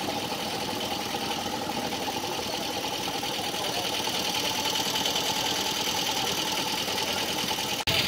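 Vehicle engine running steadily amid street noise, with a brief dropout near the end.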